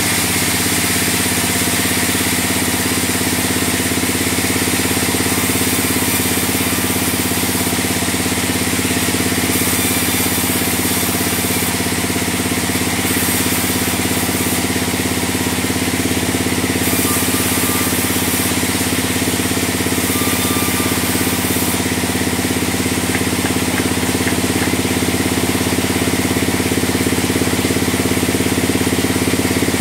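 Large sawmill band saw running steadily, its drive giving a constant loud hum with several steady tones, as logs and boards are worked through the blade.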